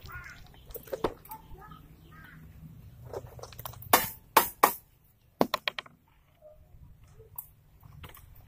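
Sharp knocks and taps of a hand tool working at the base of a satellite-dish pole on a masonry wall: three loud strikes about four seconds in, then a quick run of lighter taps.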